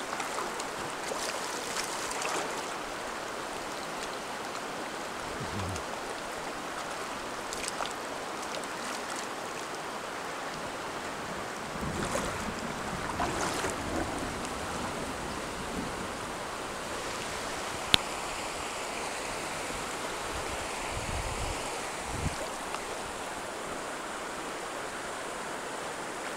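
Shallow rocky river running steadily, with sloshing as a man wades through the water. A single sharp click about 18 seconds in.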